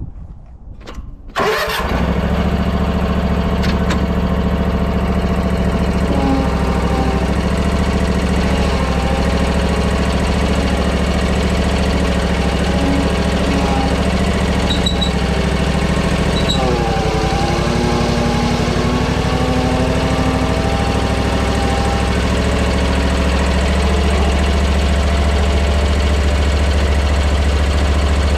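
Commercial zero-turn lawn mower's air-cooled engine starting abruptly about a second in, then running steadily. A fainter whine wavers in pitch, dipping near the middle, as the mower is driven up the ramp onto the trailer.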